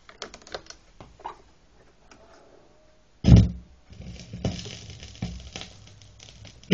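Turntable and 7-inch vinyl single being handled, a few light clicks, then a loud thump about three seconds in as the stylus is set down. Surface crackle and scattered pops of the run-in groove follow.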